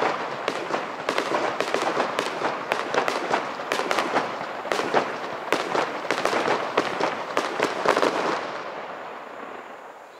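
Aerial fireworks going off in rapid succession: a dense string of bangs and crackles. About eight seconds in, the bursts stop and the sound tails away.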